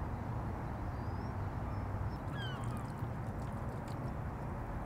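A few short, high bird calls, rising and falling, over a steady rushing outdoor background noise.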